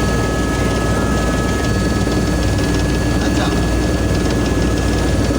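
Helicopter running with a steady, loud rotor and engine noise and a constant high whine.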